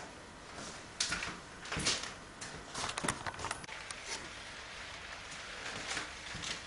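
Scattered light knocks, clicks and shuffles of a person moving about between lifts, with the sharpest clicks about a second in, near two seconds and around three seconds.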